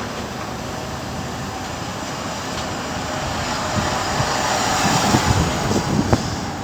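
Jet engines of a Boeing 737-400 freighter (CFM56-3 turbofans) passing, a loud rushing noise that builds to a peak about five seconds in and then begins to ease, with low irregular thumps near the peak.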